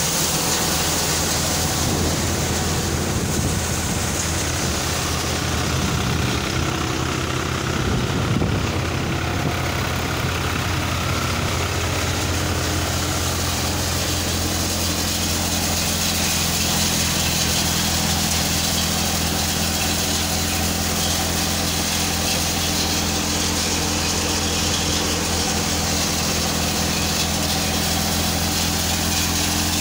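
Tractor-driven multicrop thresher running steadily while threshing soybeans: a steady engine drone under an even hiss of the threshing drum, sieves and blower.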